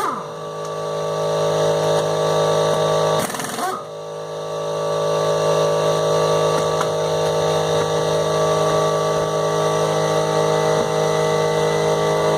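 Air compressor motor running steadily at one pitch, with two brief noisy breaks, one at the start and one about three and a half seconds in.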